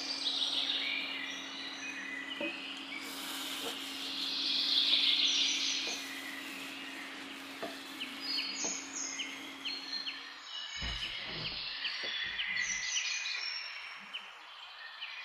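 A steady low hum under a pan of simmering chilli, with a few light clicks of a wooden spoon stirring it and birds chirping in the background. The hum stops about ten seconds in, and a few low thumps follow.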